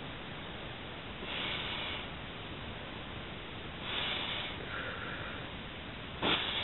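Forceful puffs of air blown through the nose into a latex glove to inflate it: three hissing blows, a couple of seconds apart, the last starting sharply.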